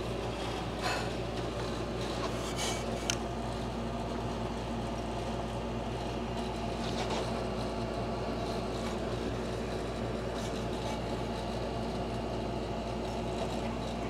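A few faint metallic clicks as the cam sprocket and timing chain of a Cadillac 472 V8 are worked loose by hand, over a steady low hum.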